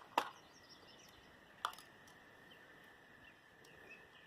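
Two short, sharp clicks about a second and a half apart near the start, the first louder, over a quiet outdoor background with a few faint bird chirps later on.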